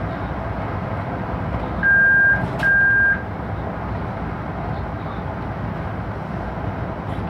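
Running noise in a train driver's cab, a steady rumble, with the cab's warning buzzer sounding two short high beeps of about half a second each, with a click between them, about two seconds in.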